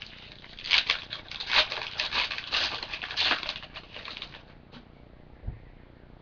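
Foil trading-card pack wrapper being torn open and crinkled: a run of crackling rustles for about three seconds, then quieter handling with a soft knock near the end.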